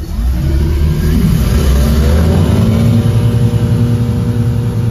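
MerCruiser 5.7 small-block V8 sterndrive engine revving up from idle, then holding steady at about 3,200 rpm under propeller load in a test tank, about as high as it will turn there.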